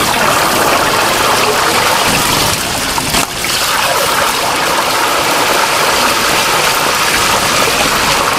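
Raw chicken pieces sizzling in a pressure fryer's open vat of hot oil at about 180 °C, a loud steady frying hiss, with a brief break about three seconds in.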